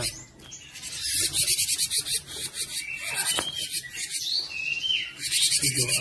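Cinereous tit (gelatik batu) calling: a fast, dry, rasping churr, broken by a few short whistled notes that slide downward about four to five seconds in.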